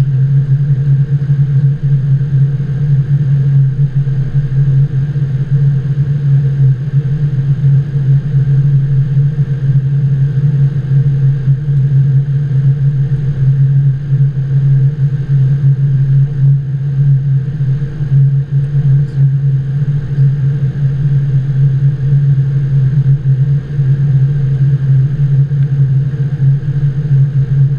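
Steady, loud low hum of a Boeing 777-200's flight deck on final approach, heard inside the cockpit, with a faint high whine above it.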